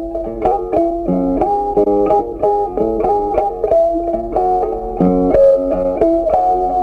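Background music: a plucked guitar playing a quick melody of short notes, several a second.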